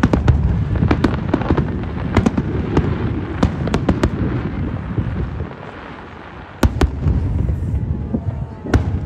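Aerial fireworks bursting: a rapid run of sharp cracks over rolling booms. It eases off about five and a half seconds in, then comes back with a loud bang a second later and another near the end.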